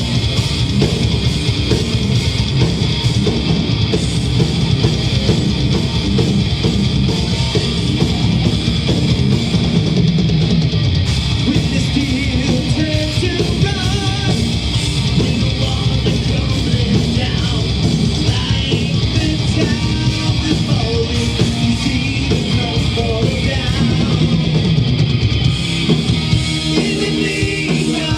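A heavy metal band playing live: distorted electric guitars, bass and fast, dense drumming, with a vocalist singing over it.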